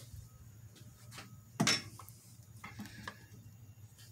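Handling noise as the camera is moved about: light rustling and scattered knocks, the loudest about a second and a half in, over a faint low steady hum.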